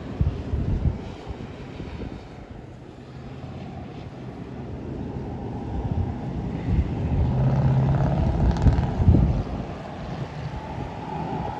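Storm wind buffeting the microphone in gusts, with a low rumble that swells from about six seconds in to a peak near nine seconds.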